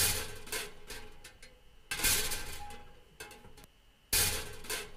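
Looped recording of a metal cooker grill being banged, played back sped up and raised in pitch. Sharp metallic clanks ring and die away: three loud hits about two seconds apart, with softer knocks between them.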